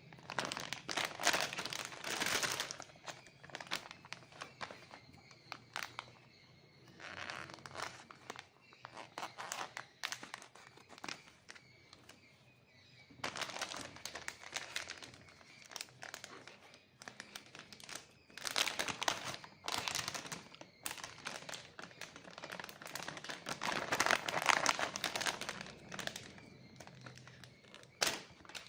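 Plastic wrapper of a Cadbury Gems Home Treats pack crinkling as it is handled, in about seven bursts of rustling with short pauses between.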